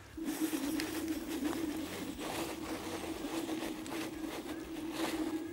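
Electric motor of an FLJ off-road e-scooter holding one steady hum under throttle while the scooter is stuck on a steep sandy slope, with crackling, scraping noise from the wheels in sand and leaves. The motor is short of power for the climb.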